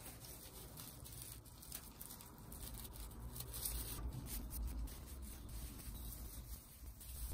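Plastic needles of artificial Christmas tree branches rustling and scraping as hands bend and spread them out, in irregular scratchy bursts over a low rumble.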